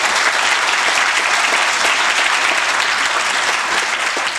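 Audience applauding: many hands clapping in a steady, dense wash.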